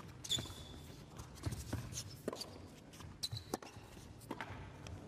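Tennis rally on an indoor hard court: a string of sharp racket-on-ball hits and ball bounces, with a couple of short shoe squeaks.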